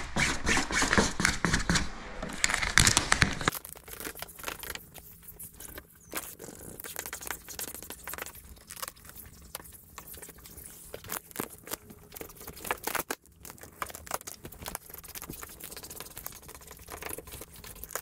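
Squeegee scraping across 3M Shadow Black Camo vinyl wrap film as it is pressed down onto a car hood, a scratchy, crinkling sound. Loud, dense strokes for the first three and a half seconds, then quieter, scattered strokes.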